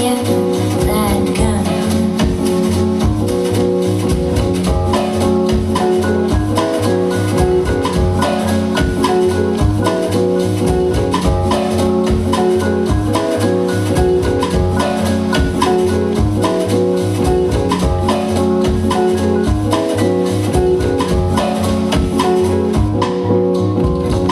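Dance music with a steady drum beat and pitched instruments playing over it.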